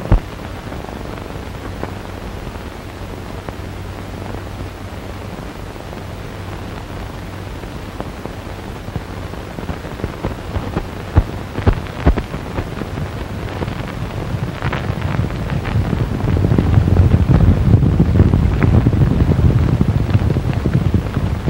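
Hiss and low hum of an old optical film soundtrack, with two sharp cracks about eleven and twelve seconds in. Near the end a loud rumble of horses galloping swells up.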